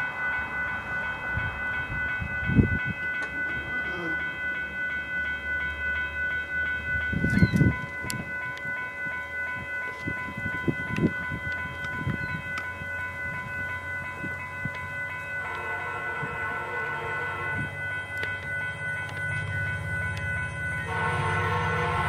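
GO Transit diesel commuter train approaching, its locomotive horn sounding a long blast two-thirds of the way through and another starting near the end, as the low rumble of the diesel grows. A steady high ringing runs underneath, and two dull thumps are heard in the first eight seconds.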